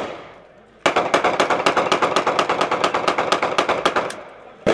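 About a second in, a machine gun fires blanks in one long, rapid, even burst lasting about three and a half seconds.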